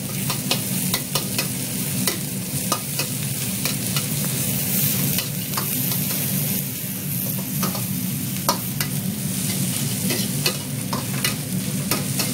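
Chopped shallot, lemongrass and coriander sizzling in a little hot cooking oil as they are stir-fried towards golden brown, with frequent irregular clicks of the stirring utensil against the pan.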